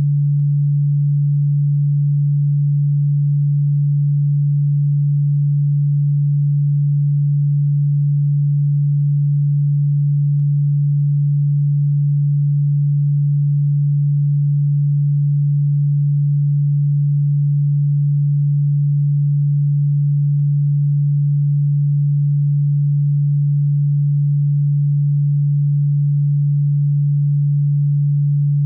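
A single steady low hum-like pure tone, unchanging in pitch and loudness. It is a generated insect-repellent tone sold as ultrasonic cockroach repellent, though its pitch is low and plainly audible, not ultrasonic.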